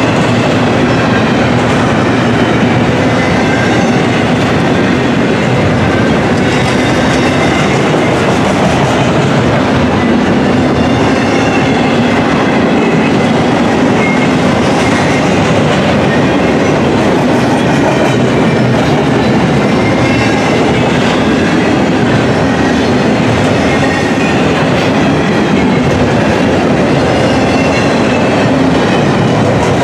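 Double-stack intermodal container well cars rolling past close by: steel wheels on the rails making a loud, steady rumble with clickety-clack over the rail joints, and faint high wheel squeals now and then.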